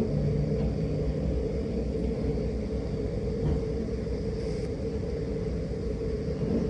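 An engine running steadily: a low rumble with a steady hum over it, after a brief knock at the very start.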